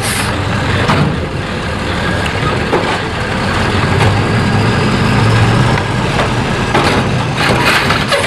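Garbage truck's engine running steadily: a low rumble under a broad hiss, with a few sharp knocks along the way.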